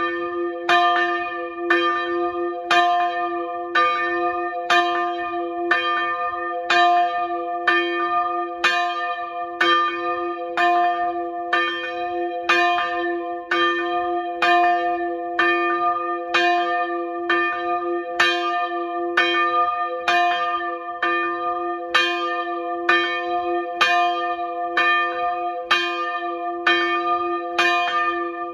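Single swinging church bell, a 130 kg bell tuned to d2 and cast in 1772 by Carl Jacob Linderberg, rung close up in its belfry to call people to a service. Its clapper strikes about once a second, and each stroke rings on into the next.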